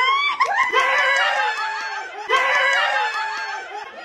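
Excited high-pitched shrieking and laughter from several people, two long squeals in a row, as a gender reveal comes out.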